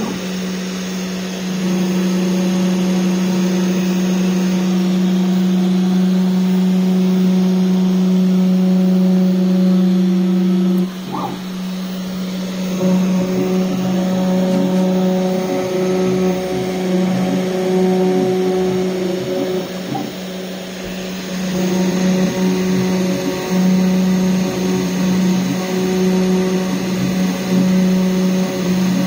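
DIY CNC router running a test engraving: a steady motor hum, with higher tones that come and go and a brief drop in level about eleven seconds in.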